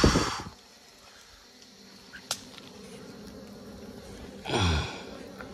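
A person's voice: a loud breathy burst right at the start, then about four and a half seconds in a short sigh or groan that falls in pitch. A single sharp click about two seconds in, over a faint steady hum.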